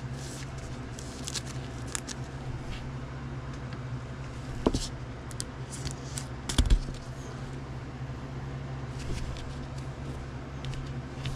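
Gloved hands handling a trading card and sliding it into a clear plastic card holder: soft rustles and light clicks, with two sharper knocks about halfway through, over a steady low hum.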